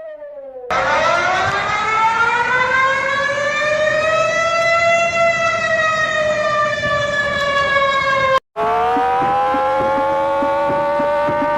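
Outdoor warning siren wailing: its pitch climbs for a few seconds, then slowly sinks, cuts out for a moment near the end, and climbs again to hold steady. Faint ticking, about three a second, runs under the last few seconds.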